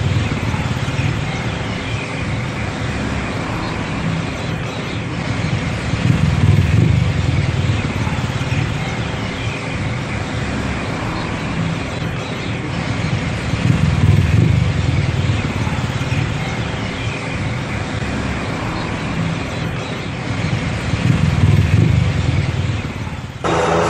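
Tuk-tuk taxi's engine and road noise heard from inside its open cabin while riding, a loud steady drone that swells louder about every seven or eight seconds as it pulls away. Near the end the sound jumps abruptly to a rising engine whine.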